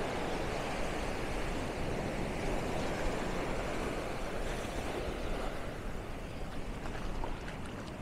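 Sea surf washing up the sand: a steady rush of breaking water, easing slightly near the end.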